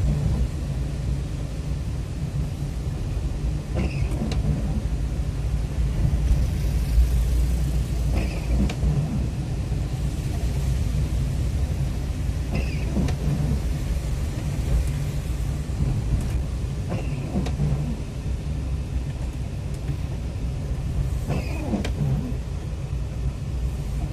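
Inside a car in slow rainy traffic: a steady low engine and road rumble, with the windshield wipers making a short sweep about every four and a half seconds on an intermittent setting.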